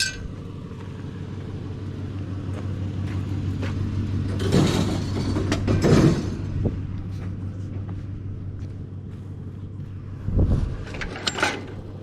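Truck engine idling steadily while scrap metal is loaded into the truck, with two loud scraping swells in the middle and a heavy thump near the end.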